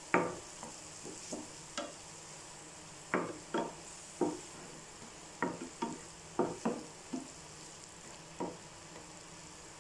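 A spatula scraping and knocking against a white ceramic-coated frying pan while onion-tomato masala is stirred, in irregular strokes over a faint steady sizzle of frying.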